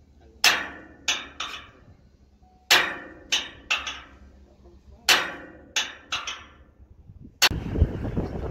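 Sledgehammer blows on a steel crane base plate, each ringing briefly, coming in three quick groups of three. About 7.5 s in, they give way to a steady rumble of engine and wind noise.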